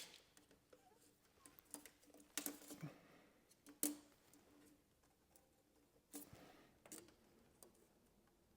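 Near silence: room tone with a few faint, scattered taps and clicks.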